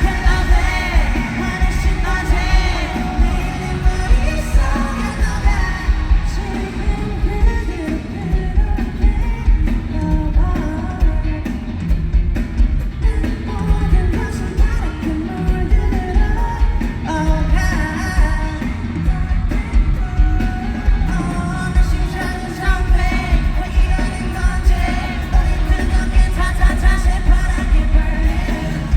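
Live pop-rock song with singing over a heavy bass beat.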